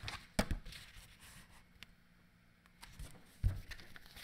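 Pages of a thin children's picture book being flipped and turned by hand: soft paper rustles with a couple of light knocks, one about half a second in and one near the end, and a short quiet gap in the middle.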